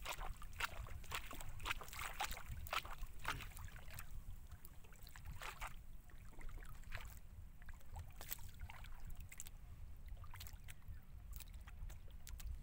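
Water lapping and slapping against the hull of a small outrigger boat drifting on open sea, with a steady low wind rumble. The slaps come fast and irregular for the first few seconds, then thin out.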